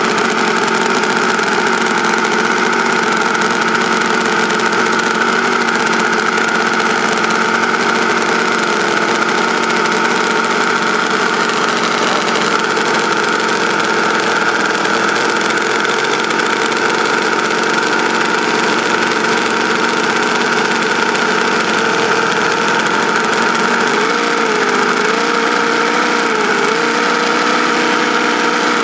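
Small homemade V4 engine, machined from scratch, running at a steady speed. Near the end its pitch dips and recovers a few times.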